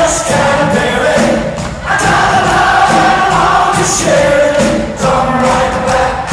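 Pop-rock band playing live, with the lead singer and many audience voices singing along.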